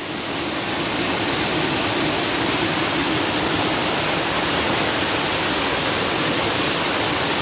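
Monsoon-swollen mountain stream in flood, its water rushing in a steady, unbroken noise that fades in over the first second.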